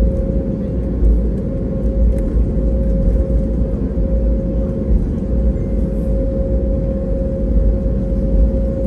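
Cabin noise inside an Airbus A320neo taxiing on the ground after landing: a steady low rumble with a constant mid-pitched hum above it.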